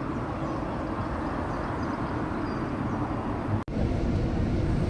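Steady low rumble of city street ambience with vehicle traffic, broken by an abrupt cut about three and a half seconds in.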